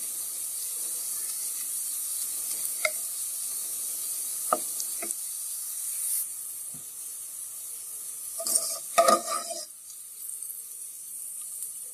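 Sliced onions sizzling steadily in oil on low heat as they fry toward crisp birista. A spatula knocks a few times against the pot. About eight and a half seconds in comes a louder clatter of a wire spider skimmer against the pot.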